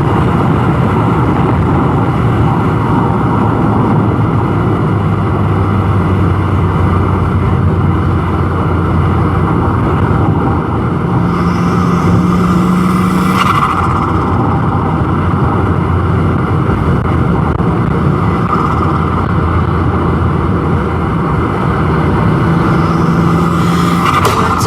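Turbocharged Volkswagen Golf GTI engine running under way with a steady drone. The engine note shifts up and down in pitch several times, and there is one brief sharp noise about halfway through.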